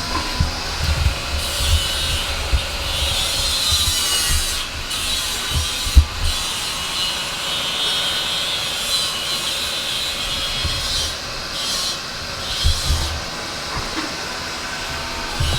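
Metalworking machinery in a steel workshop running: a steady, high, whirring, grinding noise, with low thuds here and there and one sharp knock about six seconds in.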